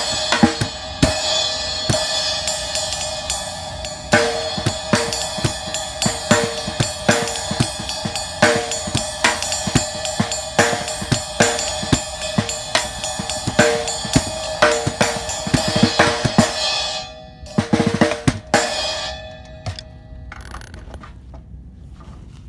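A cocktail drum converted from a 1960s 14-inch floor tom being played as a groove, with a cymbal. The low bass strokes come from an Evans hydraulic red head on the bass side, and the crisp snare strokes from a Remo coated Diplomat on the snare side. The playing stops about 17 seconds in, a few last hits follow, and then the ringing fades.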